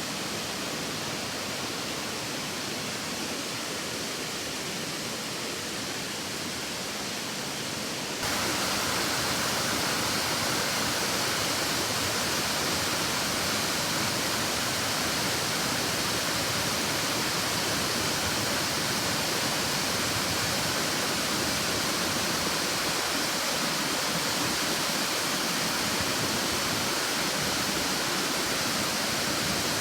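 Waterfall rushing, a steady roar of falling water that suddenly gets louder about eight seconds in and holds there.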